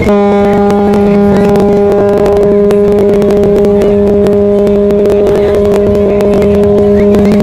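Ship's horn sounding one long, loud blast: a low, steady note with overtones that starts suddenly.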